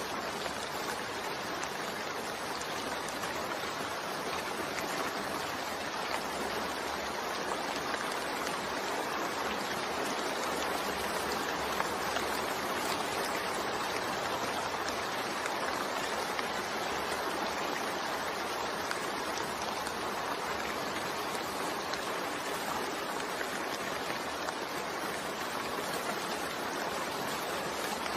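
Steady, continuous rain: an even hiss of falling rain with no breaks or thunder.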